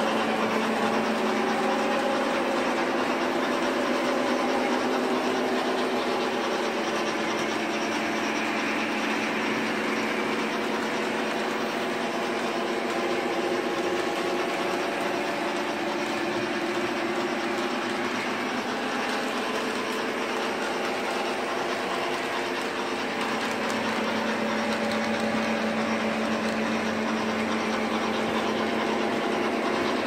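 O-scale model train locomotives running on track: a steady whir of motors and gears with their pitch drifting slightly, over the rolling and clicking of wheels on the rails.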